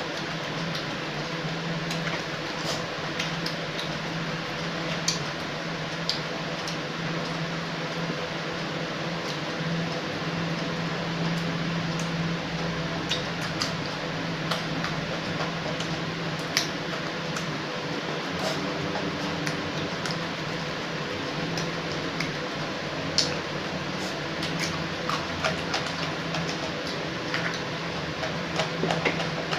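Close-up mouth sounds of a person eating raw vegetables with the hands: chewing with scattered crisp clicks and crunches. A steady low hum runs underneath.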